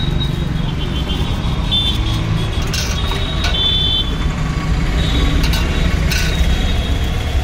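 Steady low rumble of road traffic, with a few short high clinks and brief ringing tones now and then.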